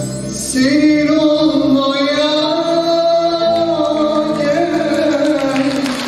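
Male singer holding one long, slowly bending note over a Turkish folk-music ensemble with bağlama and choir; the note comes in about half a second in.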